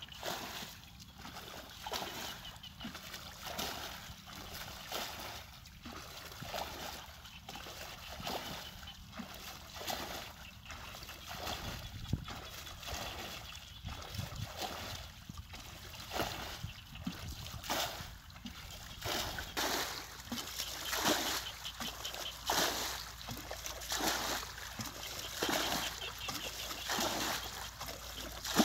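Water being bailed out of a shallow muddy ditch with a plastic bucket: a scoop and a splash as each bucketful is thrown out, repeating about every second and a half.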